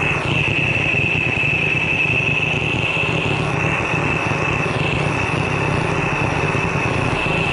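Handheld butane gas torch burning steadily: an even hissing rush of the flame with a steady high whistle over it.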